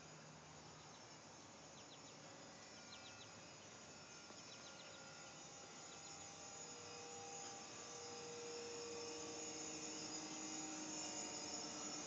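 Carrier 25VNA Infinity modulating heat pump's outdoor unit ramping up after start-up: a steady hum of several tones that slowly rise in pitch and grow louder over the second half.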